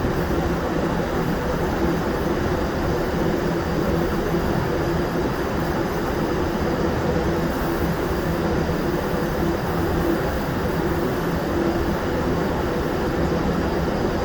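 Steady, even drone of powder-coating equipment running, with a low hum and no breaks or changes.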